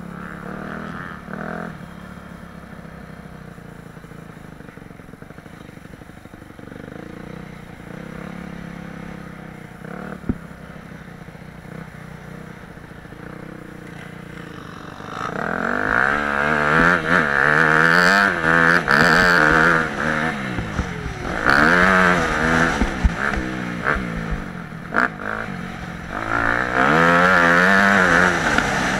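Yamaha YZ250F's single-cylinder four-stroke engine with an FMF slip-on exhaust, heard from a helmet camera. It runs low at first, then from about halfway it revs hard, its pitch rising and falling again and again as the bike accelerates.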